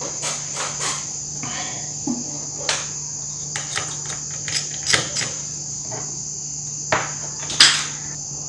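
Scattered light clicks and taps of hands and tools at work on a laptop motherboard, the loudest near the end. Under them runs a steady high chirring of crickets and a low hum.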